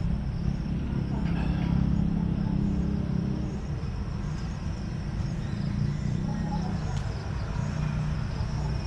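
Passing road traffic: vehicle engines humming by, swelling twice, with a steady high insect trill behind.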